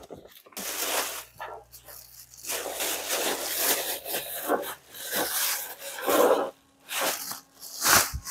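A thin plastic carrier bag crinkling and rustling in irregular bursts as it is handled and paper pattern pieces are packed into it.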